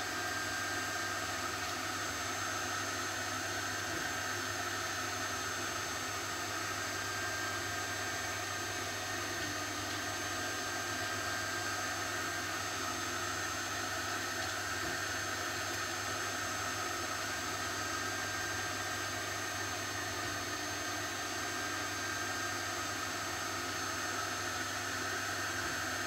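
Steady hiss with a faint hum, unchanging: background machine noise.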